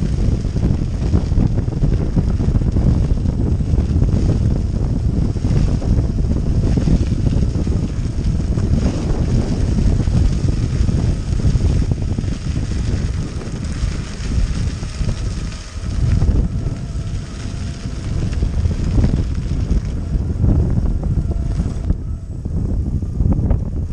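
Wind buffeting the camera microphone over the rumble of off-road skateboard wheels rolling on a dirt and grass track, a steady low rumble that eases a little near the end.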